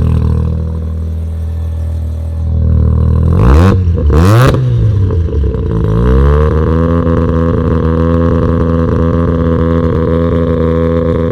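Mazda RX-7's rotary engine running, blipped twice in quick succession about four seconds in, then brought up to a higher steady speed and held there. It is running rich and smoking after being flooded during long cranking.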